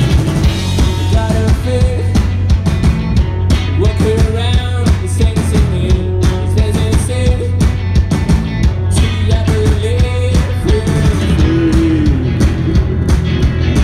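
Live rock band playing loud: electric guitars over a drum kit, with a melody line that bends up and down in pitch.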